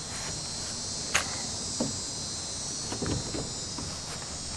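Knocks and thumps of a kayak hull being handled and tipped up off a wheeled kayak cart, the sharpest about a second in, over a steady high insect buzz.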